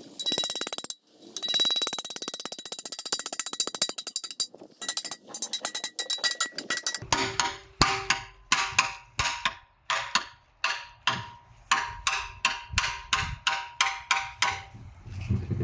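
Hammer blows on a steel drift driving an old rubber-metal bushing out of a car's rear axle beam. It starts with a rapid clatter of many quick metallic taps, and from about halfway it becomes steady blows about two a second, each with a short metallic ring.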